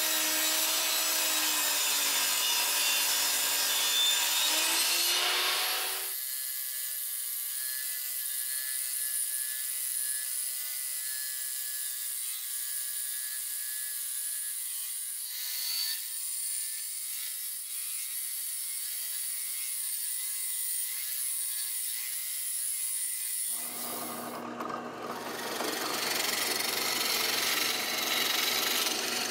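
A table saw cuts through plywood for about six seconds and stops. Then a homemade wooden band saw runs more quietly with a steady whine as it cuts a curve in the plywood. About 24 seconds in, a drill starts boring into the plywood, loud again until the end.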